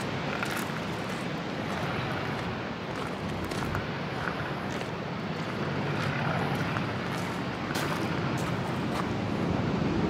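Storm wind and rain: a steady rushing noise on the microphone, with scattered light clicks.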